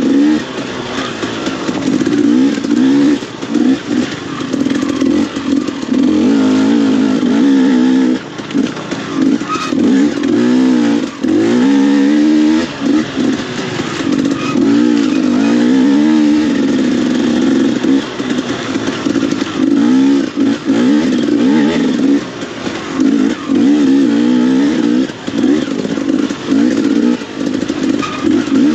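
KTM enduro motorcycle engine being ridden hard, revving up and down again and again as the throttle is opened and briefly closed.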